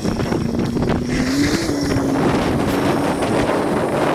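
Engine of a Kubota utility vehicle running steadily, its pitch rising a little about a second and a half in, under wind buffeting the microphone.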